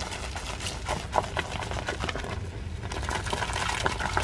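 Water from a garden hose running into a bucket heaped with swelling white foam, with a dense, irregular crackle and splashing.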